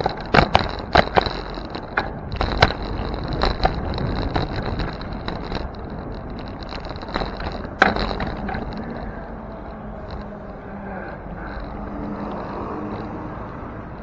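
Road noise and wind on a bicycle-mounted camera, with sharp knocks and rattles as the bike rolls over rough city pavement. It gets quieter and smoother about halfway through.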